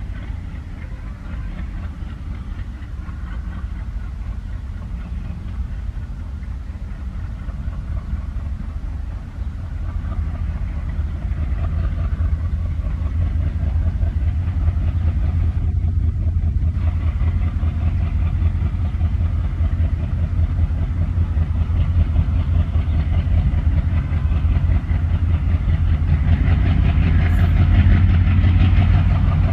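Twin ALCo WDG3A diesel locomotives with 16-cylinder turbocharged engines working hard under heavy throttle as they accelerate a passenger train from a standstill. The deep, steady engine rumble grows louder as the locomotives draw nearer.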